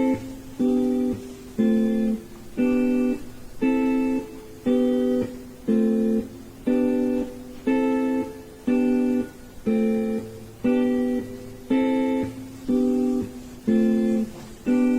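Acoustic guitar strumming the same chord over and over in a steady rhythm, about one strum a second.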